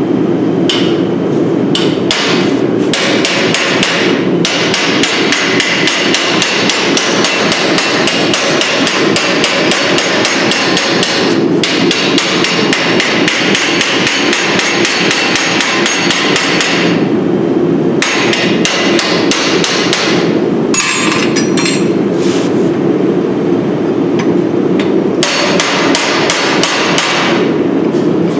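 Hammer driving chisels and punches into a glowing-hot steel bar on an anvil: rapid, evenly spaced metal-on-metal strikes in long runs, broken by brief pauses as the tool is repositioned. A steady low rumble runs underneath.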